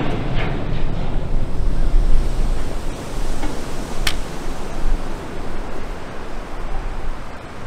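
Rushing water from a side-launched ship's launch wave surging along the canal and washing over the bank, with wind buffeting the microphone as a low rumble. A single sharp click about four seconds in.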